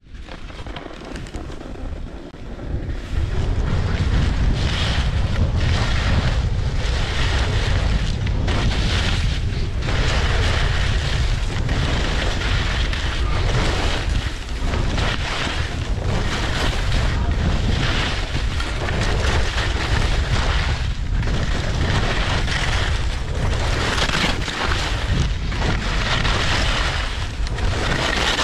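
Wind buffeting an action camera's microphone while skiing fast, with skis scraping over icy snow in a hiss that swells with each turn, about once a second. Quieter at first, it grows loud about three seconds in as the skier picks up speed.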